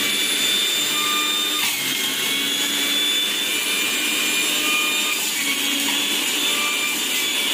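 Sujata 900-watt juicer motor running steadily on its lowest speed setting while juicing watermelon: a continuous whir with a steady high whine.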